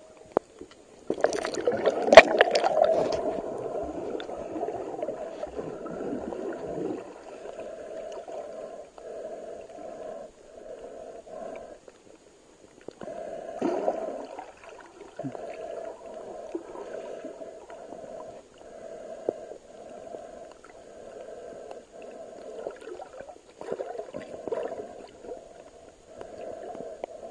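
Muffled underwater water noise recorded by a submerged camera: a loud splashing gurgle with a sharp knock in the first few seconds, then a dull swish that swells and fades about every second and a half.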